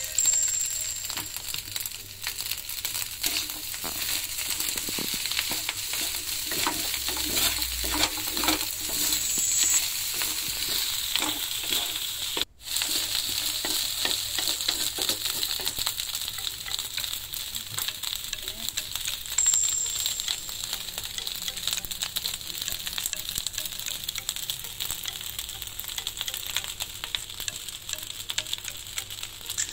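Garlic fried rice (sinangag) sizzling in a nonstick wok as it is stirred and turned with a wooden spatula, with steady hissing and frequent scrapes and taps of the spatula against the pan. The sound breaks off for a moment about twelve seconds in.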